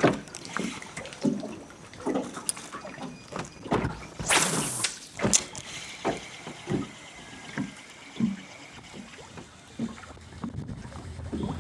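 Spinning reel being wound to work a topwater soft-plastic frog lure across the water, in short repeated pulses about every two-thirds of a second, with one brief loud rush of noise about four seconds in.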